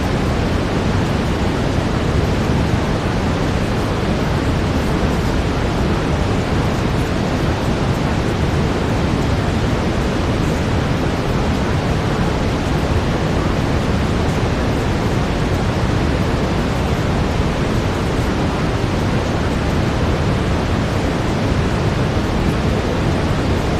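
Generated brown noise: a steady, even, deep rush with no changes or events.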